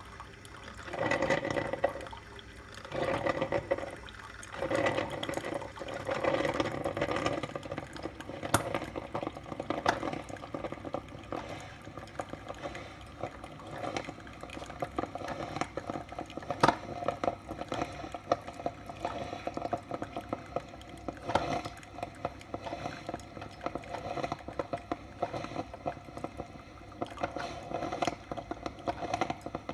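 Salter one-cup filter coffee maker brewing, its hot water gurgling and sputtering. At first it comes in surges about every two seconds, then it settles into a steadier bubbling with scattered clicks.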